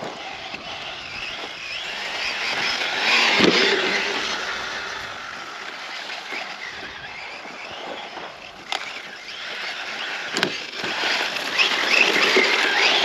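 Losi Tenacity TT Pro RC short course truck running fast on sand, its brushless electric motor whining up and down and its tyres churning and throwing sand. It swells louder twice as it passes, with two sharp knocks in between.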